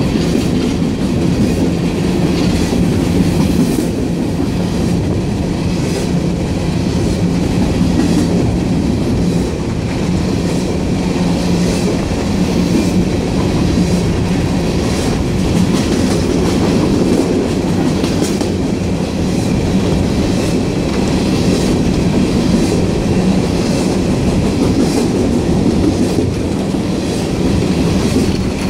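Coal train's hopper cars rolling past close by: a steady rumble of steel wheels on rail, with repeated clicks as the wheels cross rail joints.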